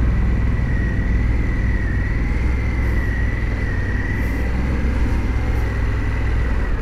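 Harley-Davidson Pan America's 1250 cc Revolution Max V-twin running steadily on the move, a low even rumble with a thin steady high whine over it.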